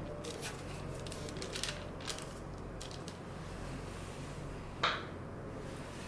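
Small light clicks and taps of kitchen utensils being handled, with one sharper click about five seconds in, over a steady low hum.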